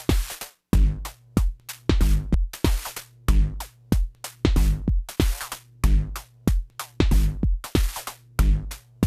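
Eurorack modular drum patch playing a steady synthesized beat: kick, snare and hi-hat voices, with sharp strikes a few times a second and a low held tone under them.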